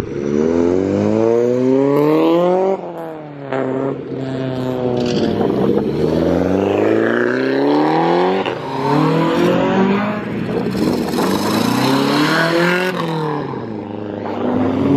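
Tuned import cars accelerating hard past one after another, their engines revving up with climbing pitch and dropping off again and again.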